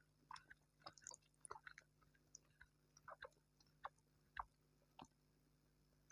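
Close-miked chewing of food: short, irregular mouth clicks and smacks, thick at first and stopping after about five seconds.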